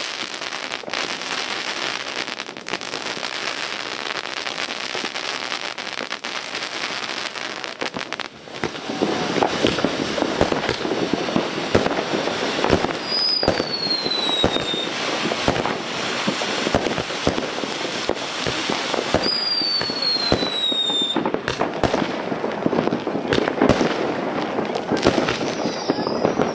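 Fireworks rockets and firecrackers going off: a dense, continuous crackling full of sharp bangs, growing louder about a third of the way in. Twice a high whistle slides downward through the crackle.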